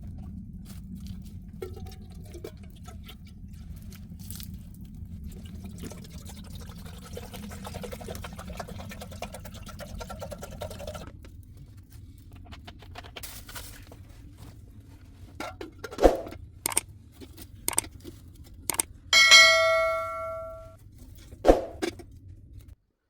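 Tea being poured for several seconds, then a few sharp clinks of tea things, one of which rings out for over a second.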